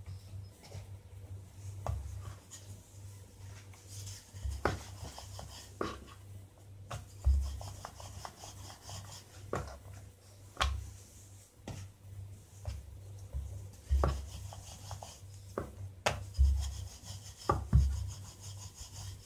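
A wooden rolling pin rolling and rubbing over rounds of dough on a bamboo chopping board, with irregular knocks and clicks as the pin and dough are moved about.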